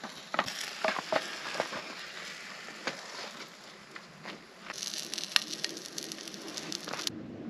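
Hot oil crackling and sizzling in a frying pan on a camp stove, mixed with clicks and knocks of utensils and bread being handled on a wooden board. The crackling grows denser about two-thirds through, then stops suddenly near the end.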